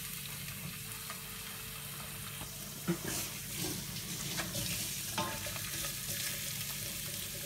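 Chopped garlic and ginger sizzling in hot oil in a non-stick pan, a steady frying hiss. From about three seconds in, a spatula stirs and knocks against the pan a few times.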